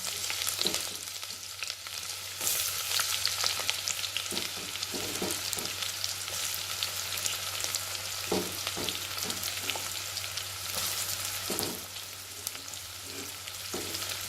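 Chopped onion and green chillies sizzling and crackling in hot ghee and oil in a pressure cooker, being stirred, with a few short knocks of the spoon against the pot.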